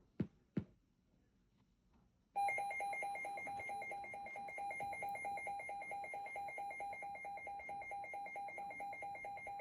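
Two faint clicks, then an Emergency Alert System attention tone starts about two seconds in: a steady, shrill alert tone held for about seven and a half seconds. It is the alarm that opens a broadcast tornado warning.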